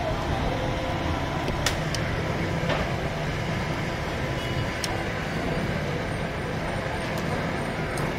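Steady street and traffic noise, with a few short sharp clicks as metal kitchen shears snip through a roasted chicken on a steel tray.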